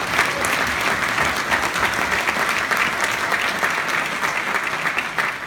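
Theatre audience applauding steadily, the clapping dying away near the end.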